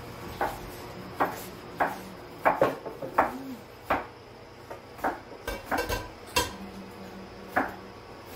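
A metal colander and pot clanking against each other and a stainless steel sink while boiled octopus is drained: about a dozen irregular sharp metal knocks, the loudest about two and a half seconds in.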